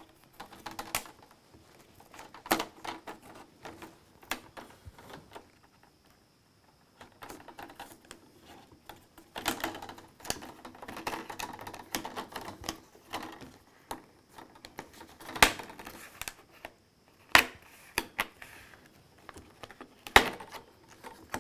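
Plastic screen bezel of an HP EliteBook 8540w being pried off with a plastic spatula: scattered sharp clicks and snaps as the bezel lets go, with scraping and rattling of plastic in between. The loudest snaps come in the second half.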